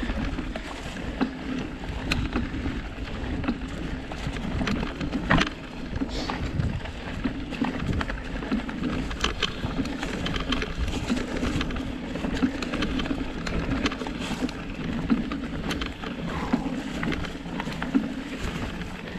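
Surly Krampus 29+ mountain bike rolling over rocky single track: a steady rolling rumble from the wide tyres, broken by frequent irregular knocks and rattles as the wheels hit rocks and roots.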